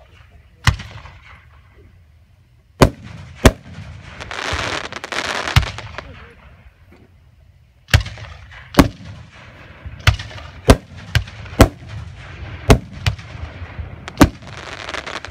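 Aerial firework shells bursting: over a dozen sharp booms, sparse at first and coming about every half second in the second half, with a stretch of hiss between the bursts around the middle.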